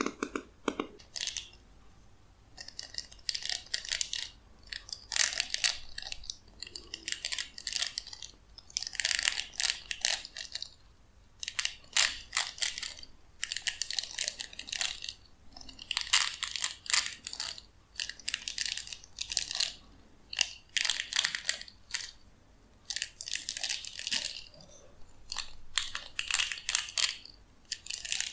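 Plastic bristles of a round hairbrush scratched and rubbed against fingers and a palm, giving crackly, rustling strokes about once a second with short quiet gaps.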